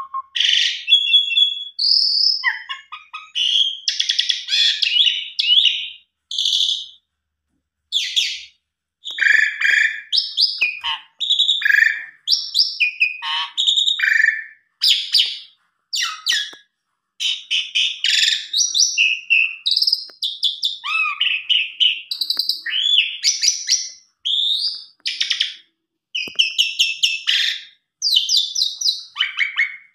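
Asian pied starling (jalak suren) singing a long, varied song of whistles, chirps and chattering phrases, broken by a few brief pauses.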